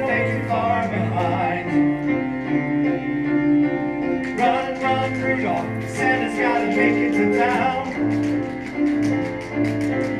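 Live stage music: voices singing over piano accompaniment, heard from the audience in a large hall.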